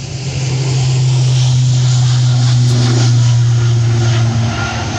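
Twin-turboprop regional airliner's engines and propellers at high power on the runway: a loud, steady low drone that swells about a second in and eases near the end.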